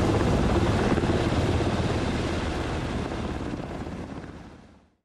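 Black Hawk helicopter's rotor and turbine noise, fading out steadily and cutting to silence near the end.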